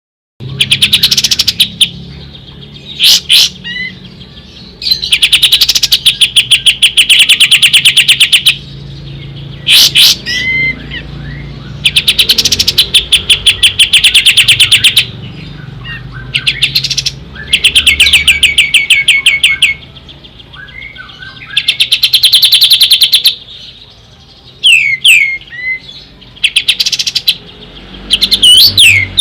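Kapas tembak songbird singing: loud bursts of rapid, evenly repeated high notes, each burst lasting two to three seconds and coming about every five seconds, with short swooping whistles in between.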